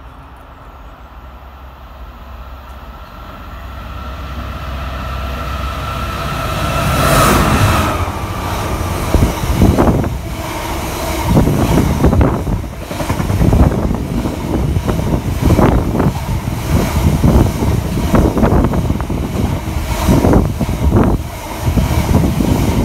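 A diesel-hauled freight train of cement tank wagons passing close by: its sound swells over the first seven seconds as the train approaches and the locomotive goes by, then the wagon wheels clatter past in a steady run of knocks over the rail joints.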